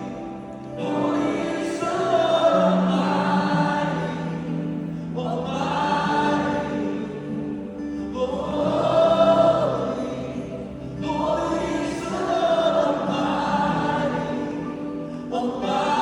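A choir or many voices singing a slow Christian worship song together, in long swelling phrases that each last a few seconds, over a steady held low accompaniment.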